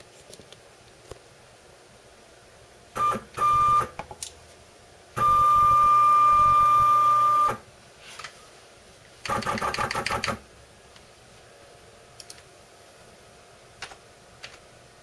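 The Z-axis NEMA 23 stepper motor of a PM-25 CNC mill driving its C7 ball screw in three jog moves. There are two short whining bursts about three seconds in, a steady whine of about two seconds from about five seconds in, and a shorter, fluttering run about nine seconds in.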